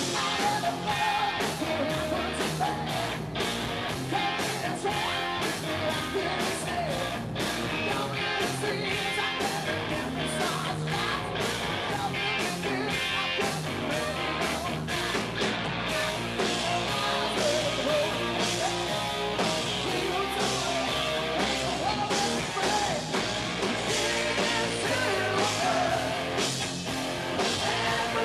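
Live hard rock band playing loud and without a break: distorted electric guitars through Marshall amplifiers, bass and a drum kit keeping a steady beat, with a male singer.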